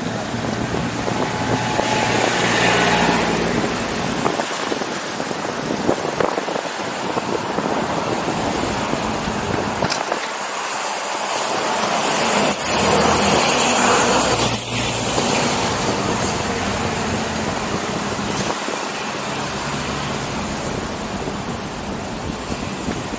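City street traffic heard from a moving bicycle: a steady rush of road and traffic noise that swells twice as vehicles pass.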